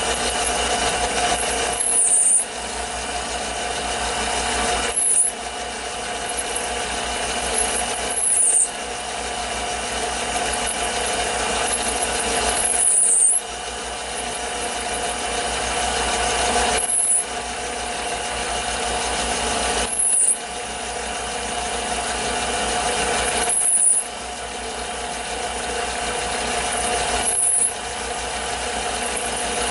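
Taig mini lathe running steadily while a cutter in the tailstock drill chuck bores into a spinning cast-iron workpiece. About every three to four seconds the cutting noise builds, lets out a brief high squeal and drops away suddenly, as the cut loads up and is eased off.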